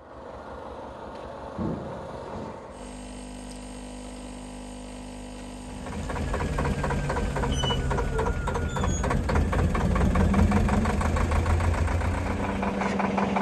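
A capsule coffee machine humming and pumping as coffee pours into a mug, then a narrowboat's old diesel engine running steadily as the boat cruises, louder than the machine.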